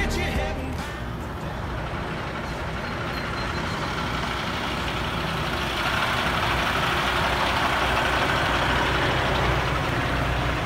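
Heavy rotator tow truck's diesel engine idling steadily, with a broad hiss that grows louder about halfway through.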